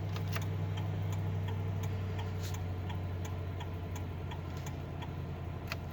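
Ford Crown Victoria Police Interceptor's 4.6-litre V8 idling steadily shortly after a cold start, with a light, regular ticking about three times a second over the low engine hum.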